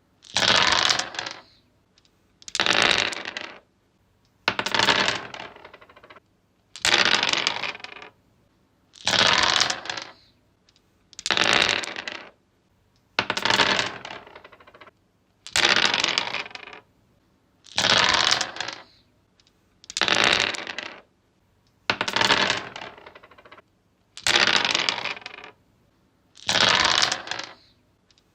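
Dice rolled again and again on a wooden surface: a clattering rattle about every two seconds, each roll tumbling for about a second and trailing off as the dice settle.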